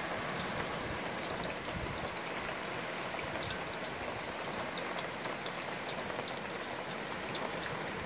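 Light rain falling: a steady hiss with scattered drops ticking on nearby surfaces.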